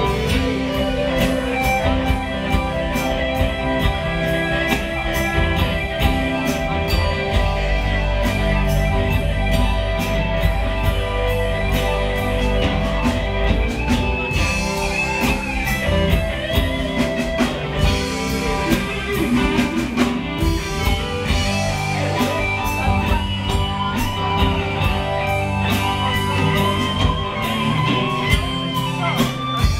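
A live rock band playing an instrumental passage: electric guitars, bass, drum kit and fiddle, with a steady drum beat and sustained lead lines.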